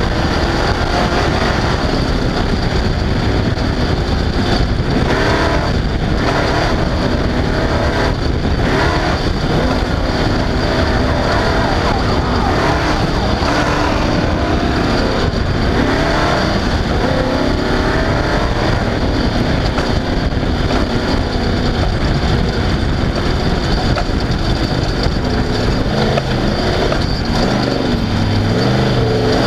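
Off-road race car engine running hard and loud, its revs rising and falling over a constant rush of noise.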